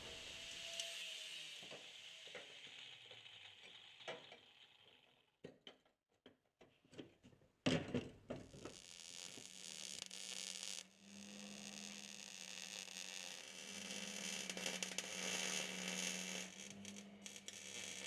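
Arc welder tacking steel seat-base mounts to the side rails: a faint crackling hiss over a steady hum that starts about halfway through, breaks off once for a moment, then runs on. Before it, a few sharp clicks and knocks of handling metal.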